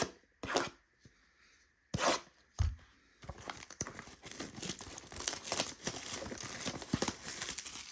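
Trading card blaster box being torn open: a few sharp snaps and a low thud in the first three seconds, then continuous crinkly tearing of the packaging from about three seconds in.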